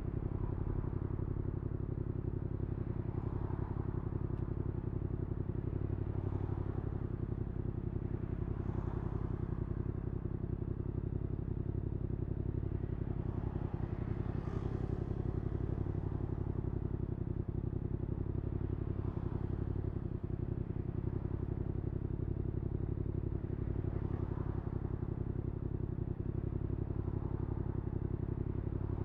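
Yamaha XSR700's 689 cc parallel-twin engine, with an IXRACE MKII aftermarket exhaust, running at a steady pitch while the motorcycle cruises.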